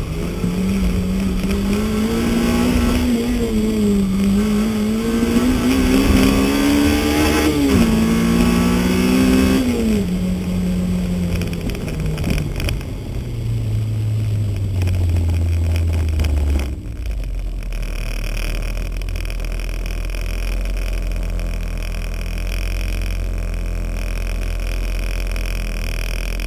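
Honda CRX's VTEC four-cylinder engine revving hard under load inside the car, its pitch climbing and dropping back at each gear change. About ten seconds in it comes off the throttle and the revs fall away as the car slows. From about 17 seconds on only a steady low rumble is left.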